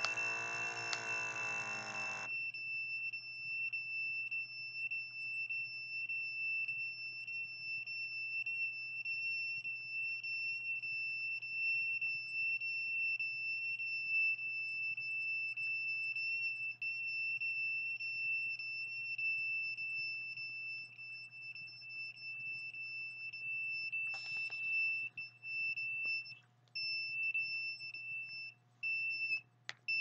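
Handheld RF detector sounding a continuous high-pitched alarm tone with faint regular ticks, the sign of a strong signal reading. The tone breaks up and stutters over the last few seconds.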